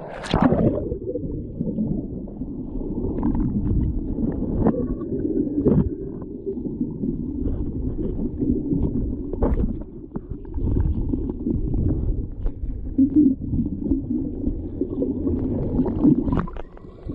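Muffled sloshing and gurgling of stream water close to the microphone, with a few sharp knocks, the loudest about half a second in.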